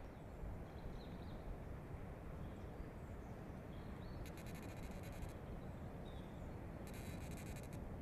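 Faint forest ambience at a black stork nest: a steady low wind rumble with small birds chirping now and then, and two bursts of rapid ticking, each about a second long, midway and near the end.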